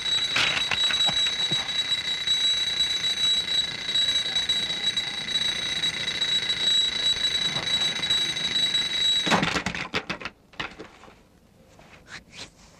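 Mechanical alarm clock ringing steadily and shrilly, then stopping abruptly about nine seconds in, followed by a few clicks and knocks.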